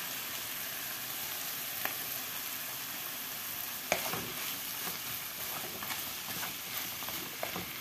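Prawns and langoustines sizzling in a frying pan with vegetables while a wooden spatula stirs them. The sizzle runs steadily, with a couple of sharp clicks, the loudest about four seconds in.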